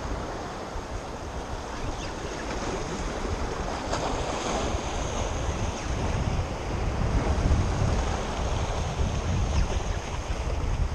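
Wind buffeting the microphone over the steady wash of waves on open water.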